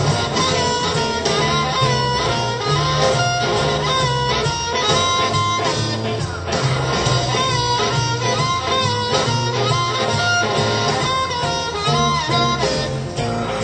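Blues band playing live: an amplified harmonica, cupped against a hand-held microphone, leads with wailing, bending notes over guitar and drums. The harmonica drops out briefly about six seconds in.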